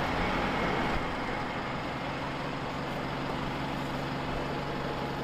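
Street traffic noise, with a large diesel engine idling steadily and giving a low, even hum.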